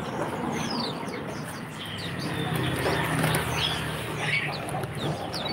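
Many small caged songbirds chirping together: short, high, falling chirps, several a second, from different birds at once.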